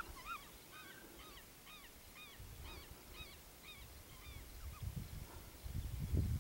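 Birds calling in quick runs of short, high, arched notes, fading out a little past the middle; low wind rumble on the microphone builds near the end.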